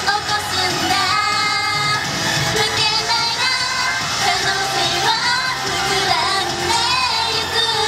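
J-pop idol song sung by two female singers into handheld microphones over pop backing music, the melody carrying on without a pause.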